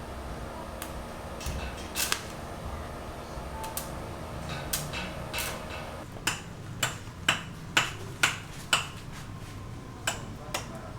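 A steady hum with a few scattered clicks, then from about six seconds in, sharp taps or knocks at an even pace of about two a second.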